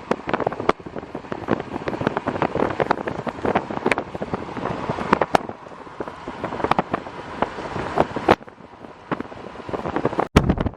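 Strong wind rushing over the microphone around a moving vehicle, with a dense stream of sharp taps and knocks. The sound cuts off abruptly about eight seconds in and again shortly before the end.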